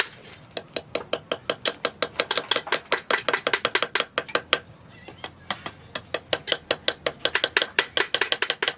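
Rapid, evenly spaced hammer blows on steel, about six a second, with a short break right at the start and another about halfway through.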